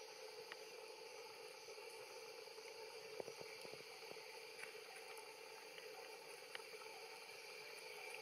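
Faint steady insect drone in the background, with a few soft clicks, a small cluster of them about three seconds in.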